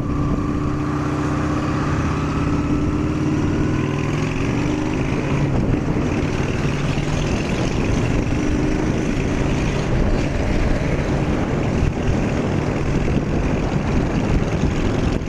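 Honda Shadow 750's V-twin engine running loud under load on an uphill climb, its pitch rising over the first few seconds as it speeds up, with a steady rushing noise over it.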